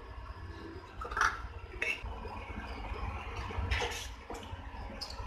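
Wooden spatula stirring a thin milk and flour roux in an aluminium pan: soft swishing of liquid and scraping on the pan, with a few slightly louder strokes about a second in, near two seconds and near four seconds.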